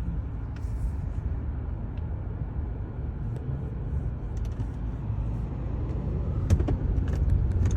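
Distant aircraft engines, a steady low rumble that grows slightly louder toward the end, with a few light clicks near the end.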